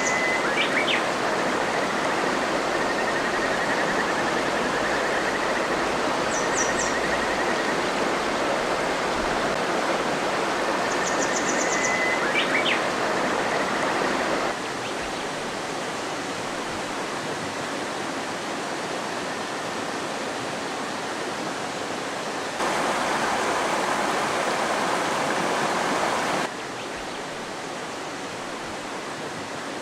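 Shallow river babbling steadily over rocks, its level stepping abruptly lower about halfway through, briefly louder again, then lower near the end. Small birds give a few short high chirps and trills in the first half.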